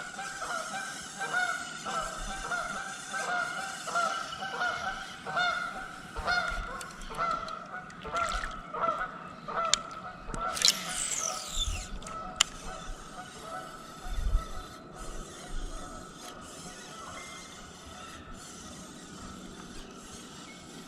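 Geese honking in a rapid, repeated series of calls that thins out and fades after about ten seconds. A brief falling swish and a couple of sharp clicks come about halfway through.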